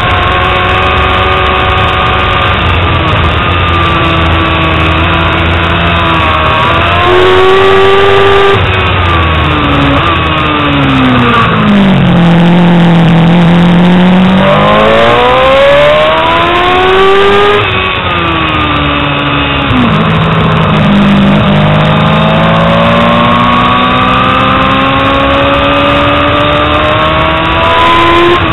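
2000 Yamaha R6's 600 cc inline-four engine at track pace. The revs hold high, then fall steeply to a low pitch about ten seconds in. They climb again, drop suddenly near eighteen seconds and rise steadily once more.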